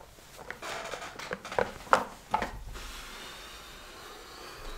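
A person getting up from an office chair and moving away: rustling with several sharp knocks and taps in the first two and a half seconds, then fainter steady room noise.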